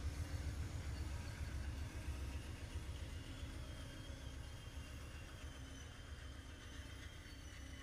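Amtrak passenger train's GE Genesis diesel locomotives rumbling as they pull away, the low engine rumble fading steadily while the double-deck cars roll past.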